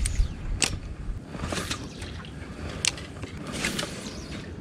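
Several light, sharp clicks, roughly one a second, from handling a spinning rod and reel in an aluminium jon boat, over a low rumble that is strongest at the start.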